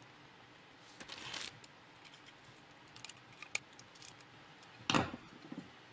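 Small screwdriver and screws being worked into a plastic controller mount by hand: a short scratchy scrape about a second in, a few light clicks, and a louder knock near the end.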